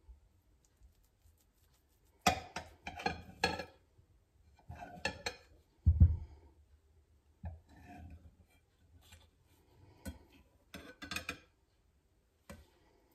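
Large kitchen knife cutting through a caramelized apple cake and scraping and clinking against the glass cake stand beneath it, in several short bursts, with a dull knock about six seconds in.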